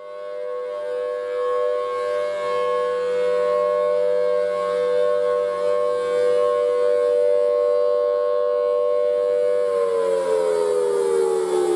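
A siren sounding a steady two-tone wail, swelling in loudness over the first few seconds. About ten seconds in, its pitch starts to fall as it winds down.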